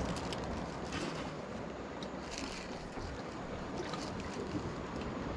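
Steady wind and water noise around a boat, with a few faint light clicks.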